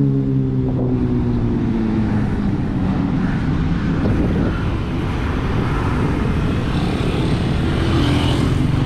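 A motor vehicle's engine hum falling in pitch and fading near the start, then a steady rushing noise of riding along a road.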